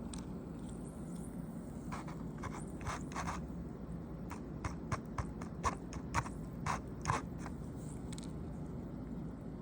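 About fifteen short scrapes or crunches, coming close together in the middle, over a steady low hum.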